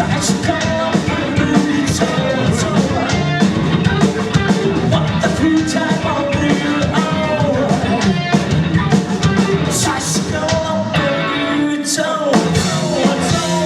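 Live rock band playing: a singer over electric guitar and drum kit.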